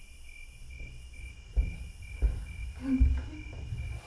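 Crickets chirping in an even pulse, about four chirps a second, over a steady high insect trill. Around the middle, three low thumps come less than a second apart.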